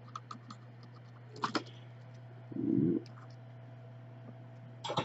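Light clicks and handling noises, with a sharper click about a second and a half in, over a steady low electrical hum. A short low murmur-like sound comes about halfway through.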